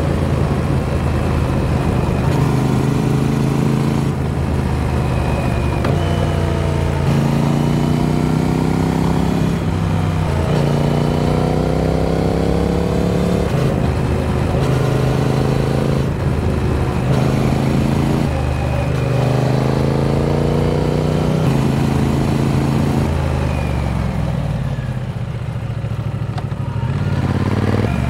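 Triumph Speed Twin 900's parallel-twin engine under way, its pitch climbing again and again with short drops between as it pulls through the gears, then easing off and falling near the end.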